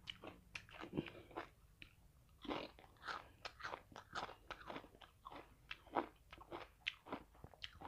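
Bitter gourd slices being chewed close to the mic: a quiet run of short, crisp crunches, about three or four a second.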